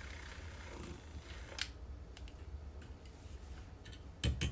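A few scattered light clicks and taps over a low steady hum, with a louder double knock near the end.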